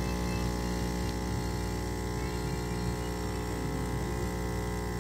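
Coffee machine's pump humming steadily as coffee streams out of it into the cups.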